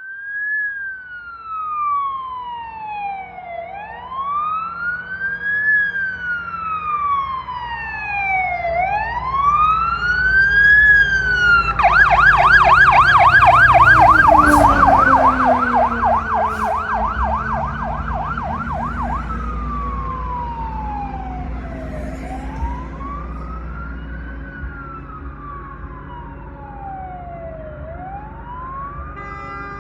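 Fire truck siren passing, running a slow rising-and-falling wail, switching about twelve seconds in to a fast yelp of about four sweeps a second, then back to the wail after about seven seconds. It is loudest during the yelp. A horn starts honking right at the end.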